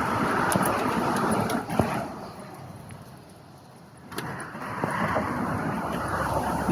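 Road traffic passing: a steady rush of car tyre and engine noise that fades about two seconds in and builds again about four seconds in as another vehicle approaches.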